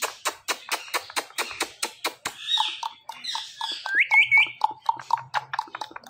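Rapid kissing smacks, about five a second, between a person's lips and an Indian ringneck parakeet's beak. Partway through the parrot gives a short rasp and then a quick run of three rising chirps.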